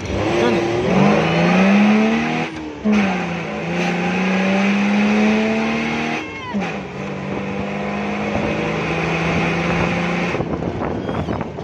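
The open-top FJ Cruiser's six-cylinder 4.5-litre non-turbo petrol engine accelerating hard. Its pitch climbs through each gear, with upshifts about three seconds in and again about six seconds in, then holds steady before dropping off near the end.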